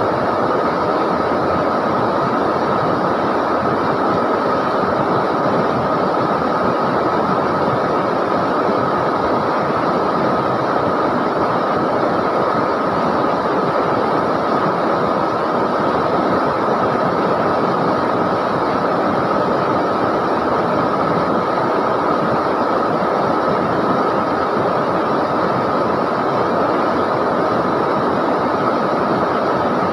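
River water flowing and rushing in a dense, even roar of noise that holds steady throughout, with a faint constant high tone running through it.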